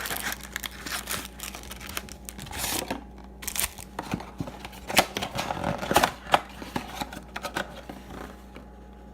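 Packaging being torn and crinkled with quick clicks and rustles as a sealed trading card box is unwrapped and opened; the handling stops near the end.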